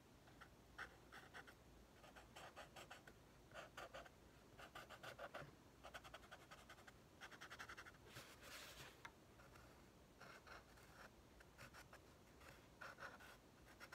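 Faint scratching of a felt-tip marker drawing on a cardboard tube: short bursts of quick strokes, with one longer stroke a little past halfway.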